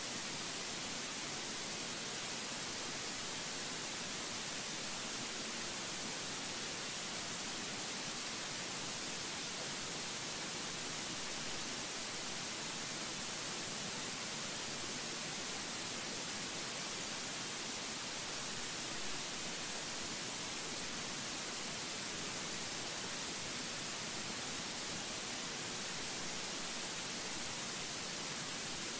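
Steady, even hiss, brightest in the treble, with nothing else standing out.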